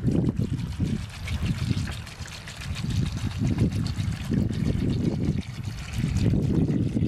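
Water pouring in a thin stream from a plastic jug into a steel pot of snails, trickling and splashing steadily, under an uneven low rumble of wind on the microphone.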